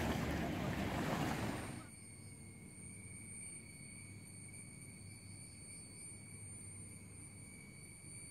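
Small sea waves washing ashore with wind on the microphone. This cuts off sharply under two seconds in to tropical cicadas droning: a steady, high, shrill sound holding several pitches at once.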